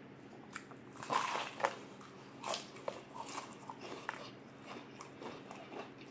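Close-up mouth sounds of someone biting into crispy KFC fried chicken: loud crunches of the breading about a second in and again a little later, followed by smaller crunches as it is chewed.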